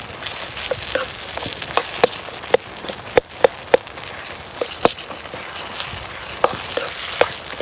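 Outdoor wood cooking fire crackling, with about a dozen sharp, irregular pops and knocks over a steady crackling hiss.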